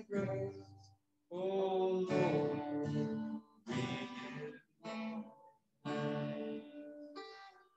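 Worship song of thanks played on guitar, with singing, in phrases about a second long with short silent gaps between them.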